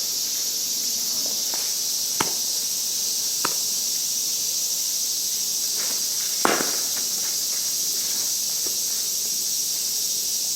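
Steady high-pitched insect chorus, with a few sharp knocks over it, the loudest about six and a half seconds in, typical of softball batting practice.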